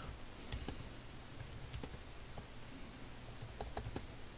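Computer keyboard keys clicking as a short command is typed: a few scattered, uneven keystrokes, faint, over a low steady hum.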